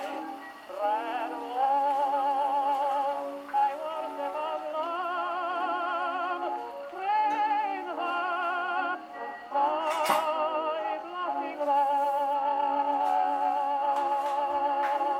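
Background music from an old early-recording-era record: a melody with heavy vibrato, thin-sounding with no bass.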